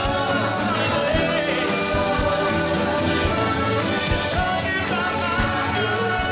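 A band playing a song with a lead singer over a steady beat, the low drum thumps falling about once a second.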